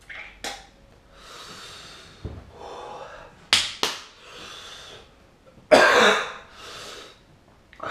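A man coughing several times and breathing hard between the coughs, the loudest cough about six seconds in, from the burn of a superhot chilli, a Habanero Chocolate × Trinidad Moruga Scorpion cross.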